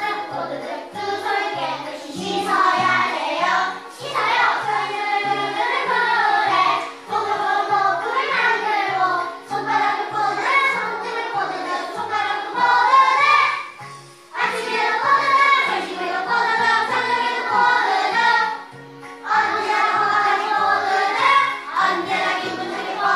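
Children's song: a group of children singing to an accompaniment with a stepping bass line, with two short breaks.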